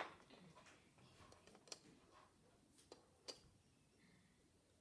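Near silence broken by a few faint, short clicks of small plastic Playstix building pieces being pressed together on a model.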